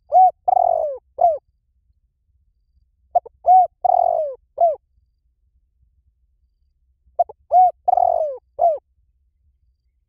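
Spotted dove cooing: three identical phrases about four seconds apart. Each phrase is a short coo, an arched coo, a longer falling coo and a short closing note.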